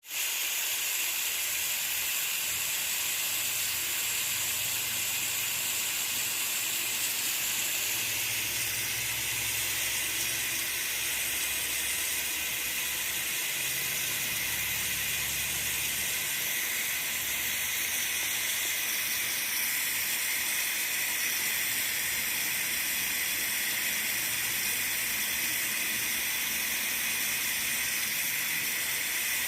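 Pressure cooker venting steam through its valve, a steady high-pitched hiss that keeps an even level: the cooker is up to pressure.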